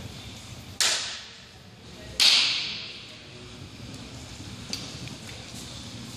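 Two loud, sharp hand claps by a sumo wrestler in the pre-bout squatting ritual, about a second and a half apart, the second louder; each rings on briefly in the gym's echo.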